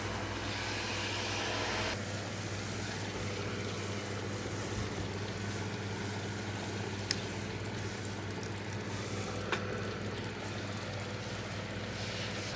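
Small electric mini fan motor running with a steady hum and the rush of its blades. The higher airy part of the sound drops away about two seconds in, and a couple of faint clicks follow.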